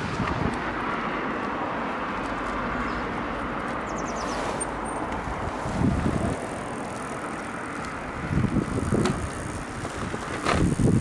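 Trice XL recumbent tricycle rolling along the road: a steady rolling hiss from the tyres and drivetrain, with a car passing near the start and a few louder low rumbles around six seconds and again near the end.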